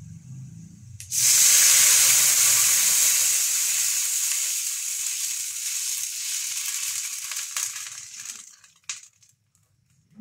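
Rice-washing water poured into a hot stainless wok of sautéed onion and garlic: a sudden loud sizzle about a second in as the liquid hits the hot pan, slowly dying away over several seconds.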